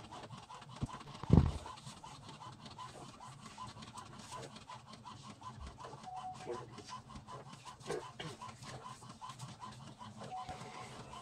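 HP Ink Tank 415 printer printing a copy: its mechanism makes a steady run of quick ticks, about four a second, as the sheet feeds out. One thump comes about a second in.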